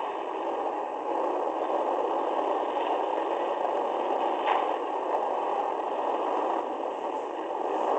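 Demolition derby car's engine running under way, a harsh, thin din through a small onboard camera mic, with one sharp bang a little past halfway as it collides with another car.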